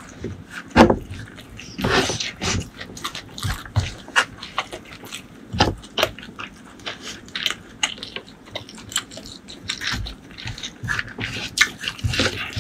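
Close-miked fingers mixing cooked white rice with curry on a wooden board, a run of irregular short clicks and squishes. About halfway through, curry gravy is poured from a small glass bowl onto the rice.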